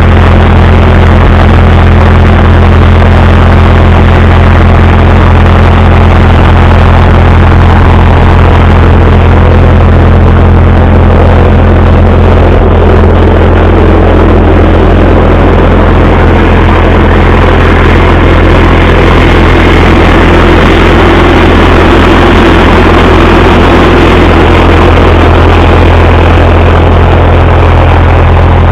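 An engine idling steadily and loudly close by, a constant low drone that does not change.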